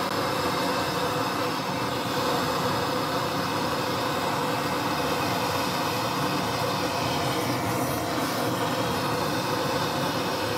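Gas torch flame burning with a steady, unbroken rushing noise as it heats a crucible of molten gold.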